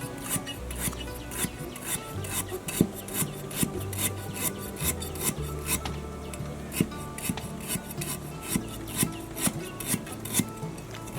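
Rhythmic rasping scrapes, about two and a half strokes a second, as something is scraped or rubbed by hand, over soft background music.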